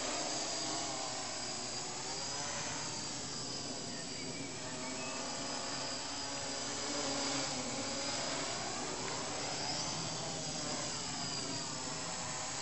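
MikroKopter quadrocopter in flight: its four brushless electric motors and propellers giving a steady buzzing whine, the pitch wavering up and down as the motor speeds change while it manoeuvres.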